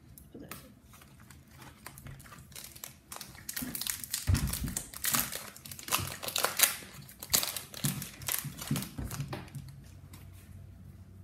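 Trading-card pack wrapper crinkling and crackling as it is opened by hand. The crackling builds a few seconds in, is loudest in the middle, and dies away near the end.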